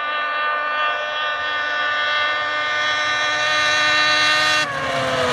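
2008 Ski-Doo MXZ-X 800R snowmobile's two-stroke twin at full throttle on a top-speed run of about 103 mph. Its high, steady engine note grows louder as it closes in, then drops sharply in pitch as it passes, near the end.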